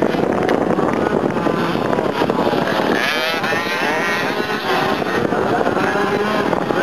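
Several 50cc two-stroke motocross bikes racing, their engines revving and overlapping, rising and falling in pitch as the riders work the throttle around the course. One nearby bike revs up sharply about three seconds in.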